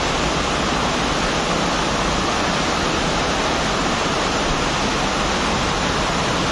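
Heavy rain pouring down: a loud, steady hiss with no break.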